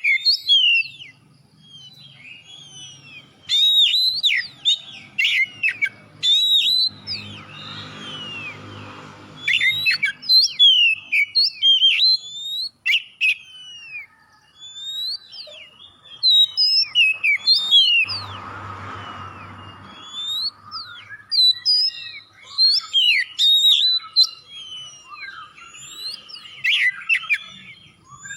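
Oriental magpie-robin singing vigorously: a fast, varied run of loud whistles and quick sweeping notes, with short pauses between phrases.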